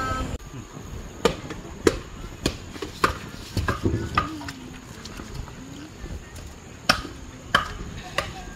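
Scattered sharp knocks, about nine of them at uneven intervals, with quieter handling noise between them.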